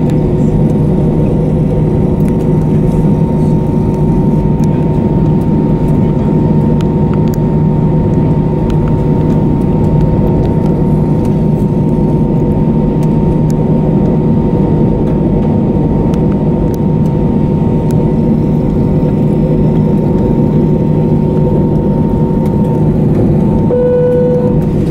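Airbus A321 cabin noise: the IAE V2500 turbofans run steadily at idle with a low hum and a few whining tones. Near the end the higher whine drops in pitch.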